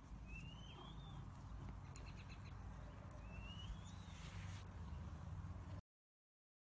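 Faint outdoor background with a steady low rumble and two short rising high-pitched chirps a few seconds apart, plus a few light clicks about two seconds in. It cuts to silence shortly before the end.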